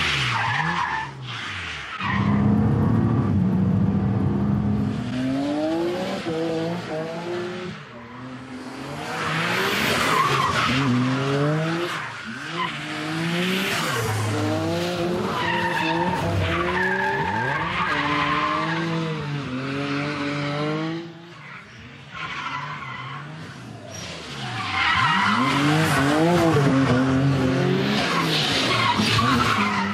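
Nissan Skyline R32 GT-R drifting: the engine revs rise and fall over and over with the throttle while the tyres squeal through long slides. The sound drops away briefly about eight seconds in and again past the twenty-second mark before the next slide.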